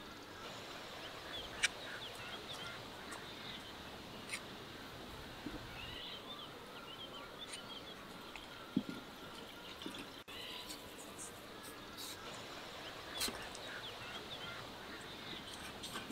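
Small birds chirping in clusters over faint outdoor background noise, with a few sharp clicks and a soft knock from hands working the dough in a metal basin.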